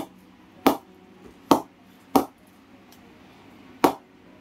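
An old leather cricket ball tapped against the face of an SS MS Dhoni player-edition English willow cricket bat: five sharp knocks, the last after a short pause. This is the ball-tap test of the bat's sound and punch, which the seller calls excellent.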